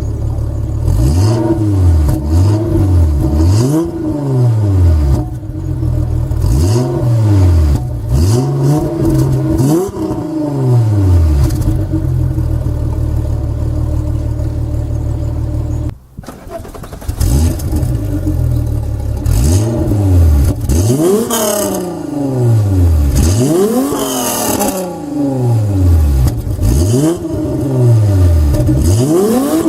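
Volkswagen Golf Mk3's VR6 engine revved again and again, its pitch climbing and falling back with each blip of the throttle, with a short break about halfway through.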